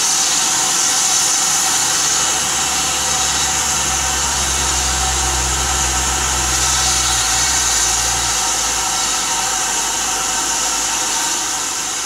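Steam locomotive venting steam: a loud, steady hiss. A low hum joins about two seconds in and stops about eight seconds in.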